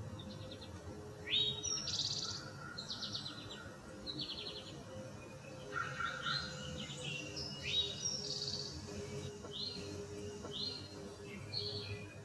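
Songbirds singing in the surrounding trees: short upward-sweeping chirps and rapid trills, repeated with short gaps.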